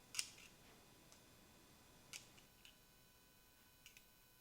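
Near silence with a few faint, sharp clicks of a small hand tool working the bolt that clamps the generator's choke control wire: one just after the start, one about two seconds in, and one near the end.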